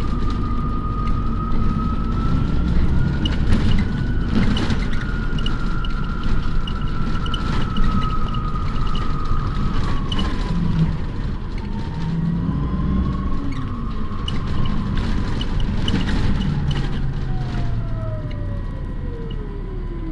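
Ride noise inside a moving Paris RATP city bus: low rumble with a steady drivetrain whine that wavers slightly with speed, then falls steadily in pitch near the end as the bus slows.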